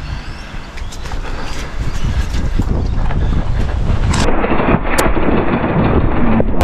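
Wind buffeting the microphone: a loud, rough low rumble that grows about a second in, with a sharp click near the end.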